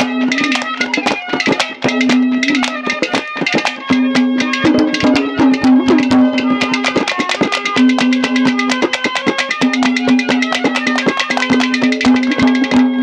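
Instrumental interlude of Haryanvi ragni folk music: a harmonium plays a melody over one steady held low note, with fast hand-drum strokes that grow denser about halfway through.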